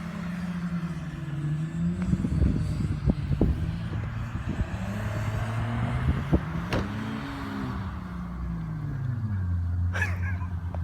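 Audi car engine revving up and down as the car slides around in deep snow, its pitch rising and falling, then settling lower and steadier near the end. Scattered sharp clicks and knocks come through in the middle.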